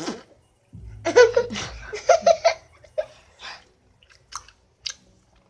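Girls giggling and laughing in quick bursts, followed by a couple of short clicks near the end.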